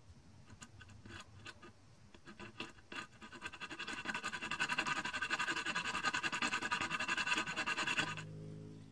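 Diamond needle file rasping back and forth on hardened 1095 blade steel in rapid short strokes, faint at first and growing louder and faster about three seconds in, with a steady high-pitched ring over the strokes. The filing stops just before the end.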